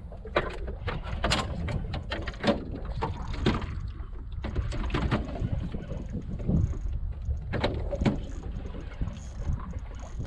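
Choppy water lapping against a small skiff's hull under a steady low rumble of wind, with irregular clicks and knocks throughout.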